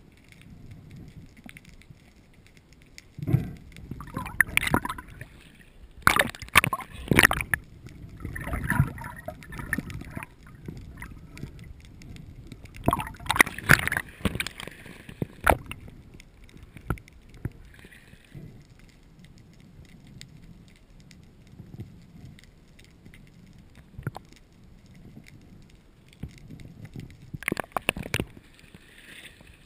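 Water sloshing and gurgling against a GoPro's underwater housing as a spearfisher swims, broken by repeated loud bursts of splashing and knocking, most of them in the first half.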